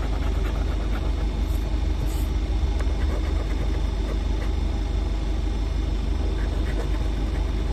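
Coin scraping the scratch-off coating of a lottery ticket in short strokes, over a steady low rumble.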